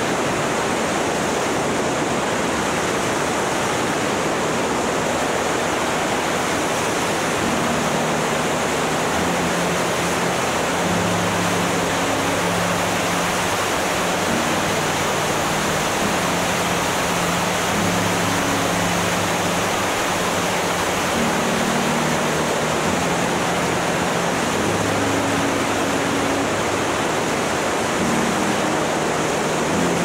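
Steady wind rush on the microphone of an open flex-wing microlight in flight. Underneath it runs the faint drone of its Rotax 912 four-cylinder engine at cruise, shifting slightly in pitch.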